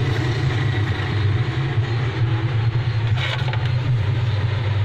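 A steady, loud, low mechanical drone, like a motor or engine running at a constant idle.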